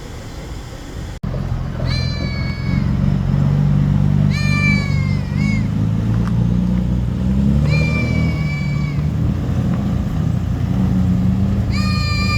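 A cat meowing four times, each call drawn out for about a second, over a steady low hum.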